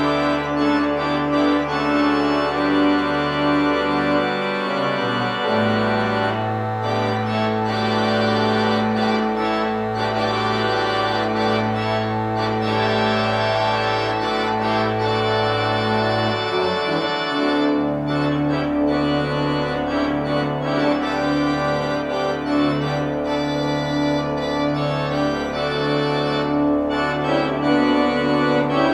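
Organ music: slow sustained chords over long-held bass notes. The harmony shifts twice, and in the second half a low note is repeated about once a second.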